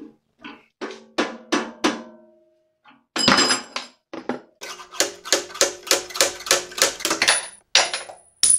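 Repeated mallet blows knocking a drill chuck off a drill press spindle's taper: a series of sharp knocks with short metallic rings, quickening to about four or five blows a second. Near the end a high metallic ring and a sharp clink as the loosened tapered arbor falls onto the concrete floor.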